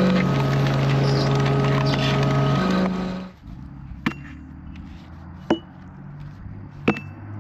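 An engine runs steadily and cuts off about three seconds in. Then come three sharp metallic strikes, each ringing briefly, about a second and a half apart: a sledgehammer driving a splitting wedge into a log.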